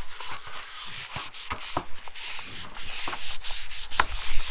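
Paper towel wiping the nonstick cooking plates of a Dash Mini Maker griddle, a scratchy rubbing broken by many light clicks and taps.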